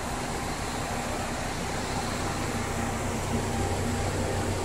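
Battery-recycling plant machinery running: a steady mechanical hum and whir of motors and fans, without changes or impacts.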